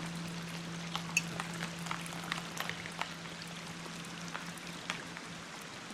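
Rain falling steadily, with many sharp individual drop hits scattered throughout, over a faint steady low hum.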